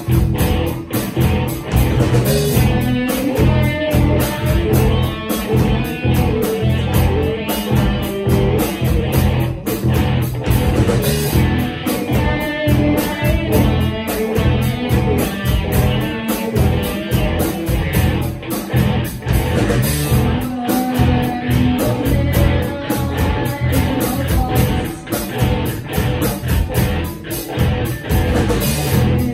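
Live rock band playing: electric guitars, bass guitar and drum kit, with a vocalist singing into a microphone over them.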